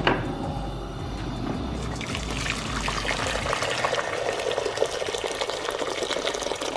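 Hot water poured from an electric kettle into a stainless steel pot: a steady splashing stream that becomes fuller after about two seconds as the pot fills.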